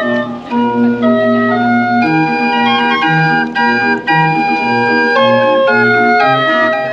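Hand-cranked barrel organ playing a tune: steady held pipe notes carrying a melody over a regularly repeating bass.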